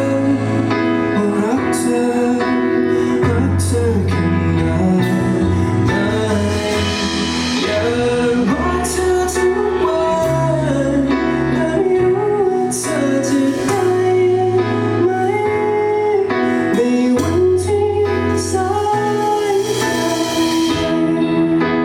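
Live band playing a song: a bass line changing notes every second or two, drums with cymbal hits, and a sliding melodic lead line over guitar.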